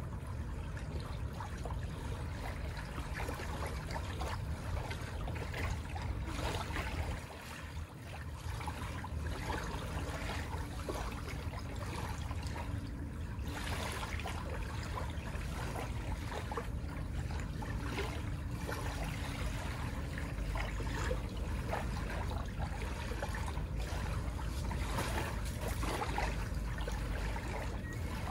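Small waves washing and trickling on a beach shore, a continuous uneven wash.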